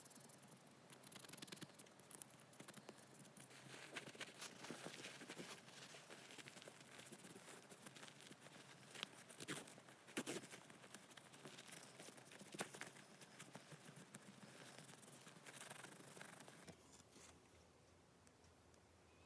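Faint scratching and rubbing with many small clicks and taps from hand work on a small object, with a few sharper clicks in the middle; it quietens near the end.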